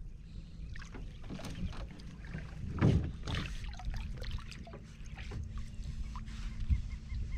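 Water splashing and sloshing in irregular bursts, with wind rumbling on the microphone and a faint steady hum starting about two seconds in.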